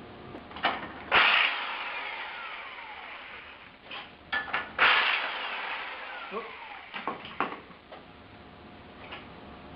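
Two sharp metallic clanks, about three and a half seconds apart, each ringing on and dying away over a couple of seconds, with a few lighter clinks between: heavy steel engine parts and tools struck or knocked together.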